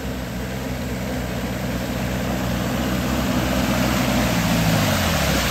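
Modified open jeep's engine pulling hard through deep mud, getting louder as it comes closer, with mud and water splashing from the tyres. The engine note drops near the end.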